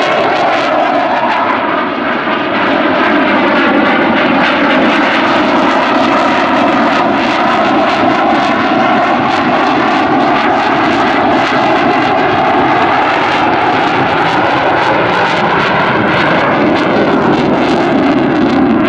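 Eurofighter Typhoon's twin EJ200 turbofans running loud in afterburner overhead. It is a steady, dense jet noise whose tones drift slowly down and then up as the aircraft turns.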